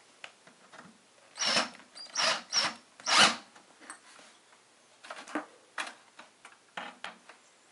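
A screw being driven into the expansion-slot bracket of a PC case to fix a PCIe wireless card in place. It comes as a run of short scraping strokes, about four loud ones a second or two in and fainter ones near the end.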